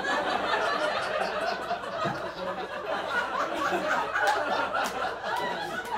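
Audience laughing together, a dense crowd laugh that holds for several seconds.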